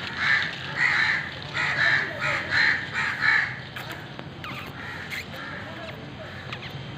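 A quick series of about eight harsh animal calls, each well under half a second, over the first three and a half seconds, then only fainter scattered sounds.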